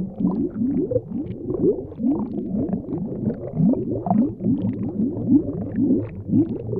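Underwater bubbling: a continuous low gurgle made of short upward-sliding blips, about four or five a second.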